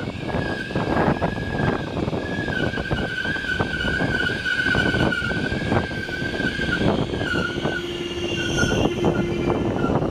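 A train running with a clattering rumble and many short knocks from the wheels, under a high, wavering steel-wheel squeal against the rail that holds for most of the time and breaks up near the end.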